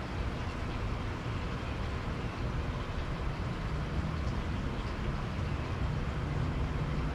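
Steady outdoor background noise: a low rumble with a fainter hiss above it, and no distinct events.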